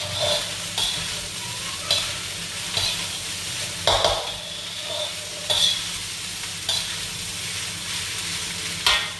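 Fried rice sizzling in a wok while a metal spatula stirs and scrapes it, with several sharp scrapes and clanks of the spatula against the wok at uneven spacing, the loudest about four seconds in and near the end.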